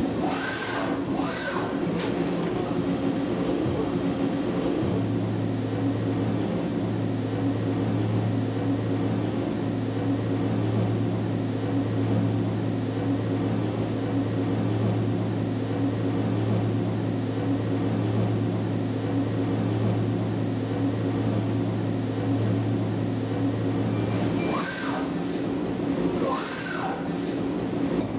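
Okuma MU-10000H horizontal machining center turning a large steel propeller hub: a steady mechanical hum over a dense rushing cutting noise. The hum drops out briefly a few seconds in and again near the end, where short hissing bursts come and go.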